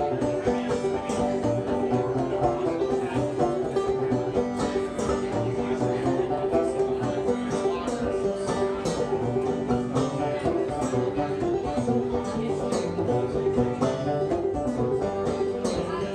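A banjo and a cello banjo playing an instrumental passage together, plucked notes in a quick, even stream.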